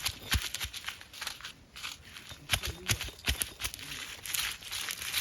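Roasted dried red chillies and coriander seeds being crushed on an ammi grinding stone. The stone roller makes irregular crunching and gritty scraping knocks on the stone slab, with a longer rasping grind near the end.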